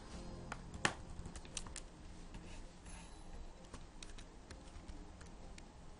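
Computer keyboard keys clicking irregularly as shortcuts such as Ctrl+Z and Ctrl+= are pressed: a dozen or so short, sharp clicks, one louder about a second in.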